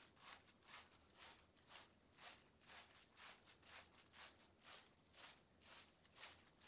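Fingers scrubbing shampoo lather through long hair, a soft wet squishing rustle in even strokes about twice a second.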